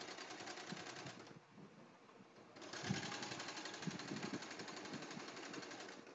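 Domestic sewing machine with a knit foot running a straight stitch through ribbed sweater knit, a fast even stitching rhythm. It stops about a second in and starts again a second or so later, running on.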